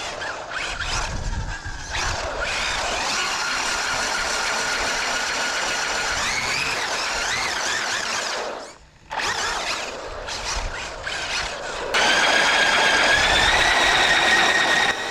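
High-pitched whine of a 6S brushless RC car motor and drivetrain at speed, its pitch rising and falling with the throttle. It drops out briefly about nine seconds in, and comes back louder and steadier near the end.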